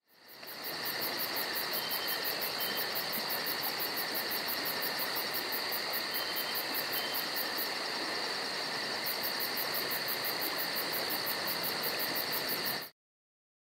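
Insects chirring steadily: a fast, even high pulsing over a continuous buzz. It fades in at the start and cuts off abruptly near the end.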